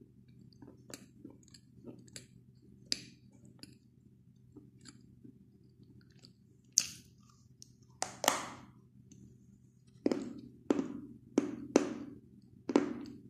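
White blackboard chalk being bitten and chewed close to the microphone. Faint crackles over the first few seconds, two sharp cracks near 7 and 8 seconds, then a run of loud crunches about every 0.7 seconds toward the end.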